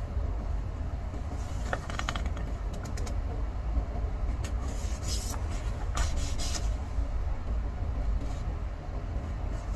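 Sheets of paper rustling and crinkling as they are handled, in short spells about two seconds in and again around five to six and a half seconds in, over a steady low rumble.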